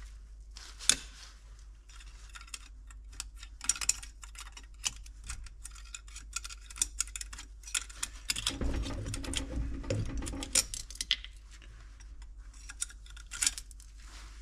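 Irregular light metallic clicks and taps of a thin steel rod poking and scraping around the valve ports of a Volvo TD100 diesel cylinder head, busier for a couple of seconds past the middle.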